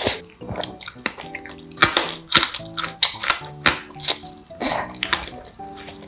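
Close-miked eating of jjajangmyeon (black bean sauce noodles): a string of short wet slurps and chewing sounds as the noodles are sucked in from chopsticks, over soft background music.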